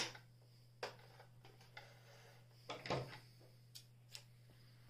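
A few light clicks and knocks, with one small cluster about three seconds in, from handling a sewing machine as the stitched cloth is taken out from under the needle, over a faint steady low hum.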